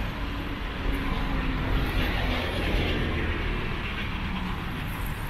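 Motor traffic passing on a city street: a steady rumble of vehicles that swells a little midway.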